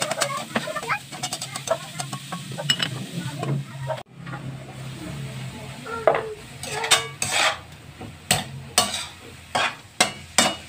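Metal spatula scraping and knocking against a metal wok as string beans are stir-fried, with a steady sizzle of frying underneath. The strokes come irregularly and get louder and more frequent after a brief break about four seconds in.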